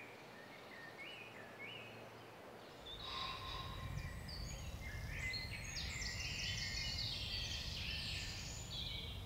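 Woodland birdsong: a few short chirps at first, then from about three seconds in several small birds singing at once, busy and overlapping, over a low background rumble.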